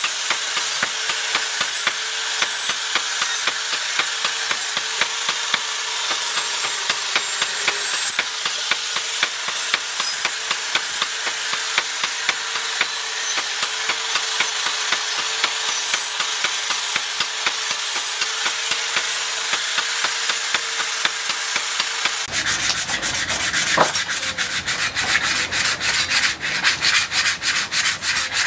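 Angle grinder with a sanding disc running against the steel knife blade, a steady motor whine with a gritty rubbing. About 22 seconds in it gives way to quick, repeated hand-sanding strokes on the blade, several a second.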